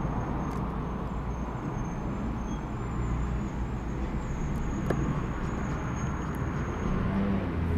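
Steady low background rumble with a few faint light clicks, as a small screwdriver refits a tiny screw.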